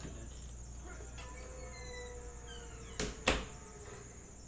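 Football trading cards being flipped through by hand, with two sharp clicks about three seconds in, a third of a second apart, over a steady high-pitched whine.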